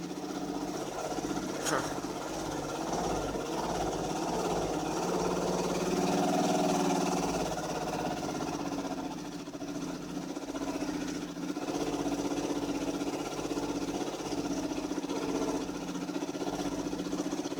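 2005 Dodge Magnum's 2.7-litre V6 idling roughly, the engine speed swelling about six seconds in and sagging a few seconds later. The rough idle shows no check-engine code, and the engine is running hot.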